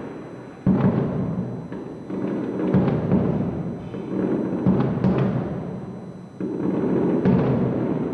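Aerial firework shells bursting about 1300 m away: about seven deep booms, one every second or so, each trailing off in a long echo across the city.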